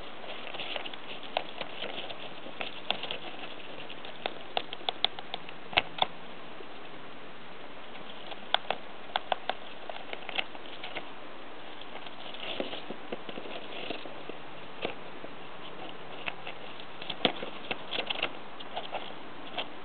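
A pet rodent gnawing and scrabbling at a cardboard clingfilm tube in wood-shaving bedding, trying to get at a peanut inside. It gives irregular runs of sharp clicks and crackles of chewed cardboard and stirred shavings.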